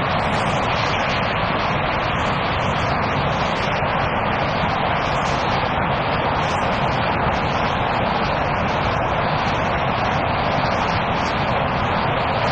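Picanol Optimax double flexible rapier loom running while weaving Kevlar fabric: a loud, steady, dense mechanical noise with no let-up.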